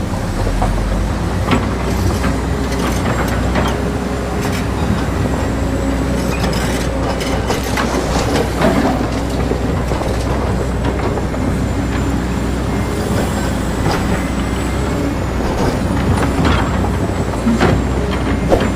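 Remote-control excavator running: a steady, engine-like diesel drone with scattered clicks and knocks throughout.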